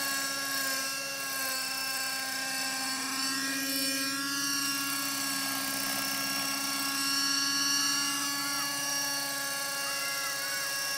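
Align T-Rex 600 Nitro Super Pro radio-controlled helicopter in flight: its nitro glow engine and rotor give a steady high whine, the pitch wavering slightly as it manoeuvres.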